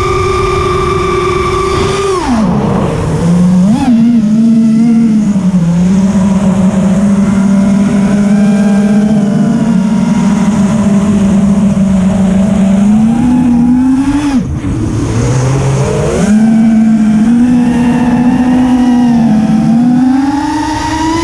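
Brushless motors and propellers of an Eachine Wizard X220 FPV racing quadcopter in flight, a loud steady whine whose pitch rises and falls with the throttle: high at first, dropping after about two seconds, climbing again around two-thirds of the way in, and rising once more near the end.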